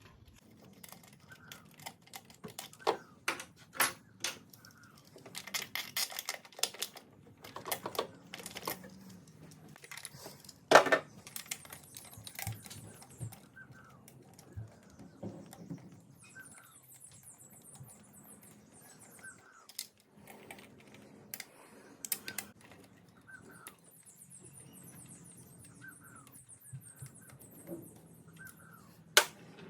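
Ratchet wrench clicking and metal tools clinking while nuts and bolts are undone on a Jeep 4.0L fuel rail. Short irregular runs of ratcheting, with a dense run of clicks about six seconds in and the sharpest clink about eleven seconds in.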